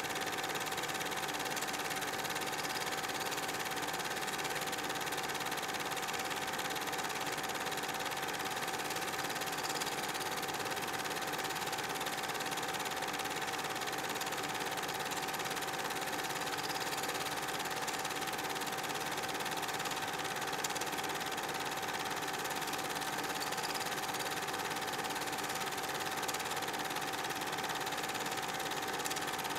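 8 mm film projector running: an even mechanical whirr and clatter with a steady whine that does not change, the only sound on the track of a silent home movie.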